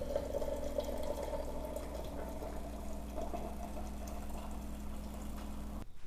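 Single-serve brewer dispensing hot water into a stainless travel mug with a tea bag in it: a steady stream of water over the hum of the machine's pump. It cuts off abruptly just before the end.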